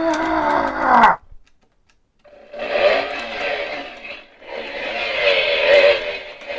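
A man's drawn-out yell, then two bursts of a prop chainsaw's engine-revving sound, each about two seconds long, with a short gap between them.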